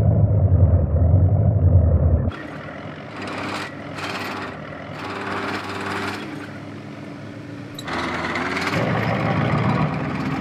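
Tank engine and machinery sounds: a loud, muffled low engine sound for the first two seconds, then a lighter mechanical clatter and whir with clicks, growing louder again about eight seconds in.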